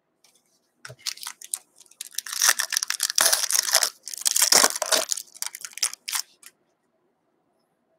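Foil wrapper of a hockey card pack being torn open and crinkled: a run of crackling rips, loudest in the middle, that stops about six and a half seconds in.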